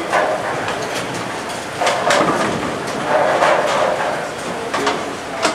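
Bowling alley din: bowling balls rolling down the lanes with a low rumble, and pins clattering in several sharp crashes.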